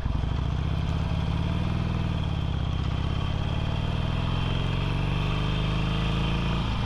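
Harley-Davidson Sportster's air-cooled V-twin engine running steadily while the motorcycle cruises down the road, its note dipping briefly near the end.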